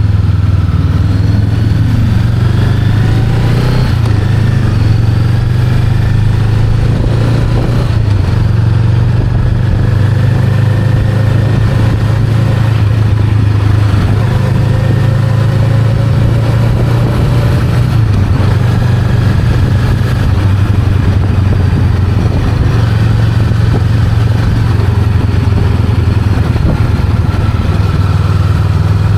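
Honda Rebel 500's parallel-twin engine running while the motorcycle is ridden, a steady low engine note with slow, gentle rises in pitch.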